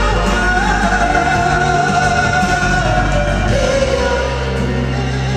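Two male vocalists singing a ballad live over instrumental accompaniment. A voice holds a long high note for about three seconds, then moves down to a lower note.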